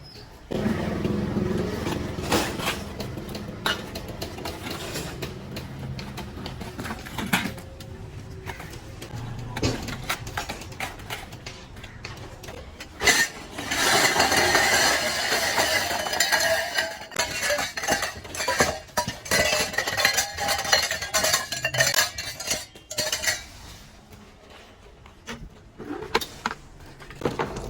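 Dishes and metal utensils clinking and clattering, many short knocks and clinks through the stretch. There is a louder, dense noisy stretch in the middle lasting several seconds.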